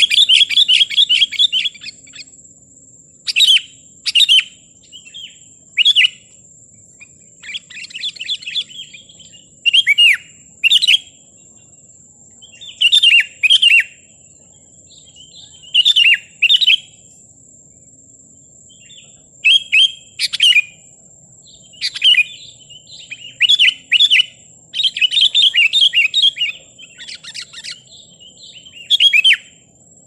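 Sooty-headed bulbul calling in an excited run of chirps: short bursts of bubbly notes repeated every second or two, the kind of provoking call used to lure and rile rival bulbuls. A faint steady high tone runs underneath.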